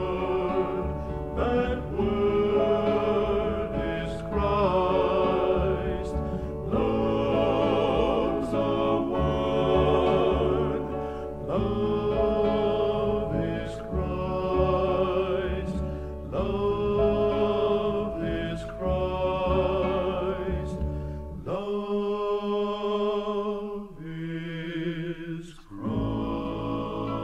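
Gospel music from a vinyl album track: sustained, wavering notes over a steady bass line. The bass drops out for about four seconds near the end, then comes back in.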